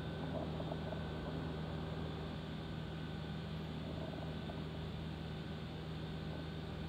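Steady low mechanical hum with a faint constant high tone and an even hiss, unchanging throughout.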